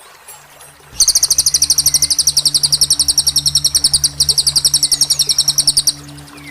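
A songbird's loud, rapid, evenly repeated high-pitched trill, played as a bird-mastering song. It starts about a second in, breaks briefly in the middle and stops about a second before the end. A faint steady low drone of background music runs underneath.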